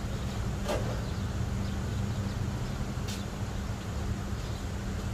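A steady low hum, with a faint click about two-thirds of a second in and another about three seconds in.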